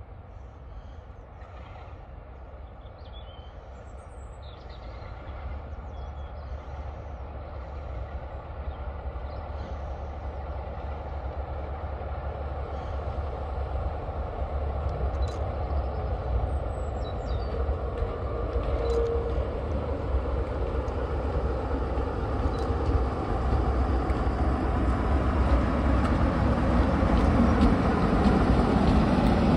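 British Rail Class 46 diesel locomotive D182, its Sulzer twin-bank 12-cylinder engine working under load as it pulls away with a train of coaches, with a steady low rumble that grows steadily louder as it approaches and comes close by near the end.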